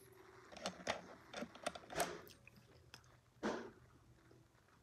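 Faint wet mouth clicks as lips press and smack together, working in freshly applied lipstick: a string of small clicks over the first two and a half seconds, then a short soft rustle about three and a half seconds in.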